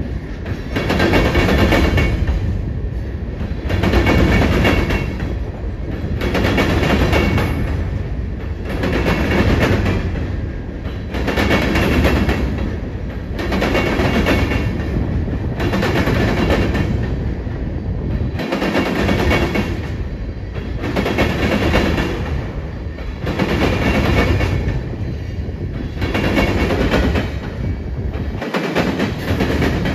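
Freight cars of a BNSF manifest train rolling over a double diamond crossing. The steel wheels clatter across the crossing in regular pulses about every one and a half seconds, over a steady rumble.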